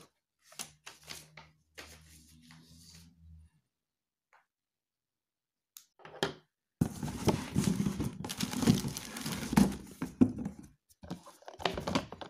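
Cardboard and plastic wrapping being handled as a retail box is pulled out of a cardboard shipping carton: rustling, crinkling and scraping with a few thumps. It starts about seven seconds in and goes on for several seconds, after a few faint clicks and a brief low hum.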